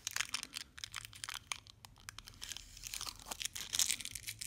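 Clear plastic packaging crinkling and tearing as it is pulled off a folding pocket knife by hand, in quick irregular crackles.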